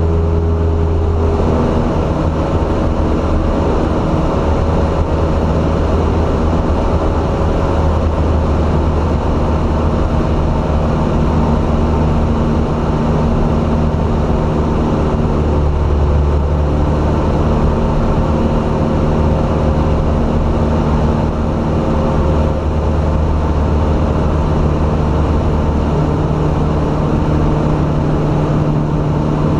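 Piston engine and propeller of a single-engine light plane running steadily in flight, heard from inside the cabin. The pitch shifts slightly about two seconds in and again near the end.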